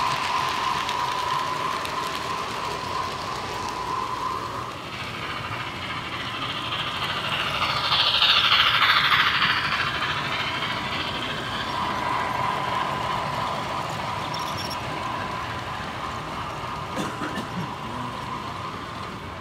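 Model trains running along the layout track: wheels rattling on the rails with a steady high whine. The sound swells to its loudest about eight to nine seconds in as a train passes close by, then fades.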